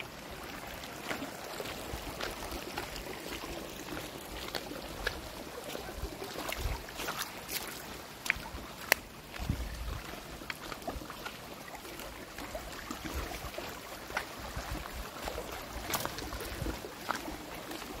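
Creek water running steadily over rocks, with wind rumbling on the microphone in a few gusts and scattered sharp clicks throughout.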